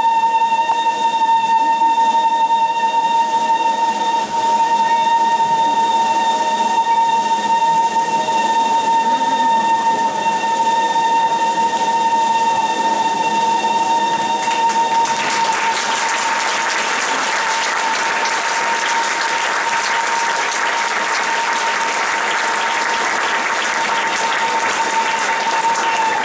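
Clarinet holding one long, unbroken high note. Audience applause breaks out about halfway through and continues while the note is still held.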